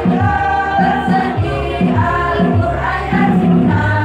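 A women's choir singing in several voice parts.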